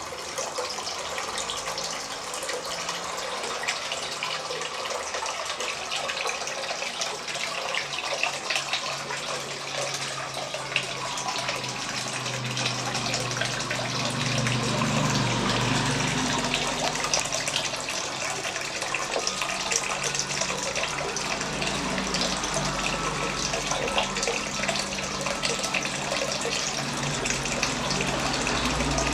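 Homemade indoor waterfall fountain running: water falling and splashing steadily, with a low hum that comes and goes.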